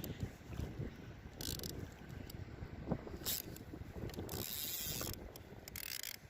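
Fishing reel working in several short spells of ratchety whirring, over a low rumble of wind on the microphone.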